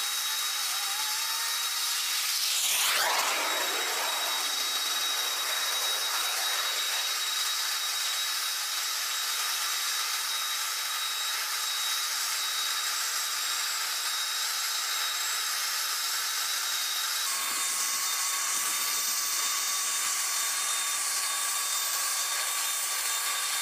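Steady high-pitched jet-turbine whine over a rushing hiss, from the parked C-5 Galaxy's turbine equipment on the ramp. A brief swelling whoosh comes about three seconds in, and the whine's pitch shifts slightly past the middle.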